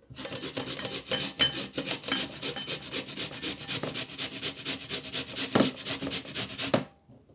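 White turnip being grated on the fine side of a hand grater: a run of quick, even rasping strokes that stops abruptly near the end.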